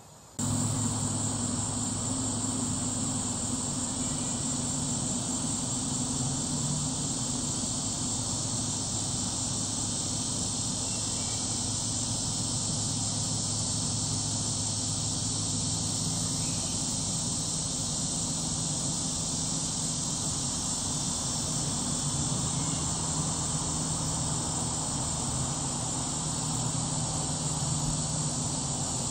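Steady chorus of insects, a constant high buzzing drone, over a low steady mechanical hum that holds several fixed pitches. Both start together about half a second in and run on without change.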